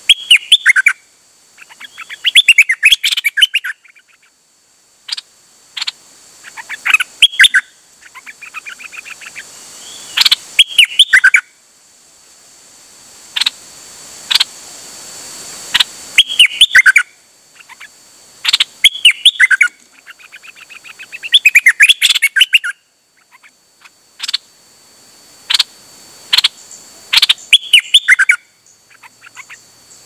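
A caged songbird, known in Thai bird-keeping as a dok taeng (นกดอกแตง), sings short, fast, chattering warbled phrases again and again, about one every two to three seconds, with sharp click-like notes between them. A faint steady high whine runs underneath.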